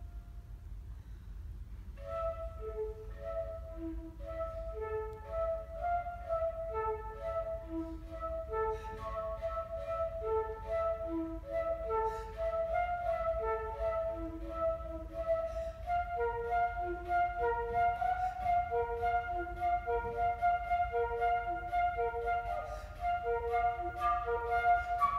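Solo flute: a held note ends shortly after the start, then after a brief pause a fast, evenly repeating figure of short notes begins and runs on, getting louder toward the end.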